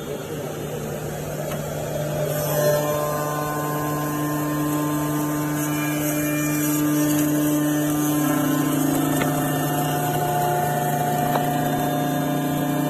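CNC wood-turning lathe running: a steady low motor hum, joined about two and a half seconds in by several steady whining tones and a hiss as the machine works, the tones dropping in pitch a little past the middle.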